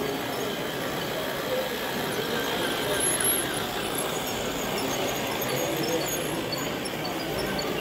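Small electric toy trains running round a plastic-track layout with a thin high squeal, over a steady murmur of people talking.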